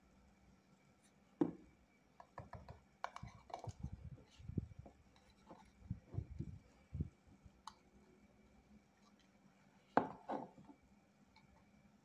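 Light knocks, taps and rubbing as a small hollow PVC plastic part is handled, turned over and set down on a cutting mat. There is a busy run of small knocks in the first half and two sharper knocks near the end.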